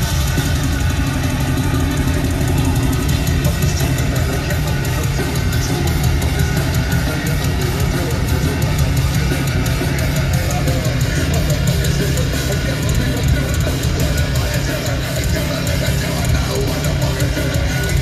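Heavy metal band playing live: distorted electric guitars over fast, dense drumming, loud and unbroken.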